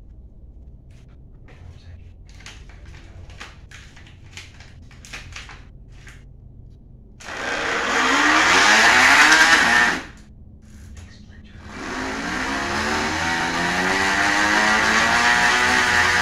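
A small child imitating a motorbike engine with his voice, a noisy 'brrrm' that swings up and down in pitch like revving. It comes in two long goes, separated by a pause for breath about ten seconds in. Before that, the first seven seconds hold only light clicks and taps of the bicycle being handled.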